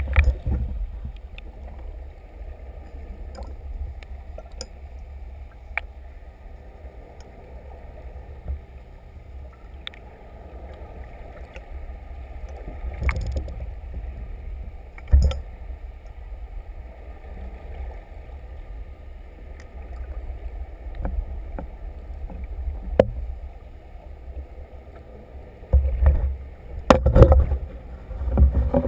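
Muffled underwater water noise picked up by a submerged camera: a steady low rumble with scattered sharp knocks, and a cluster of louder bumps near the end.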